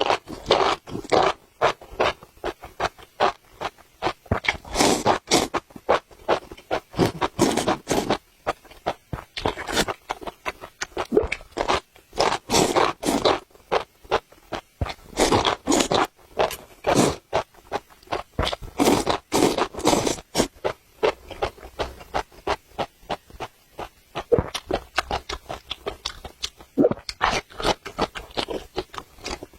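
A person biting and chewing blistered tiger-skin chili peppers, with crunching and mouth clicks coming in quick, irregular clusters.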